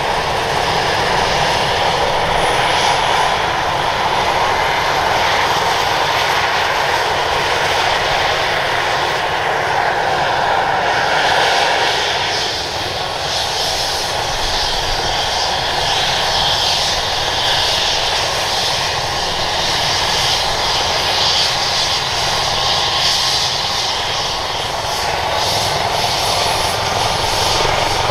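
Airbus H135 helicopter running on the ground before take-off: its twin Pratt & Whitney PW206B3 turboshaft engines and spinning rotors make a steady loud noise, with a faint high whine over it.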